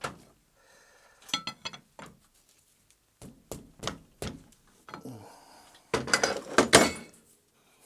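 Metal tools and lathe parts clinking and knocking as they are handled. A quick run of ringing clinks comes about a second and a half in, then scattered knocks, and the loudest clattering comes near the end.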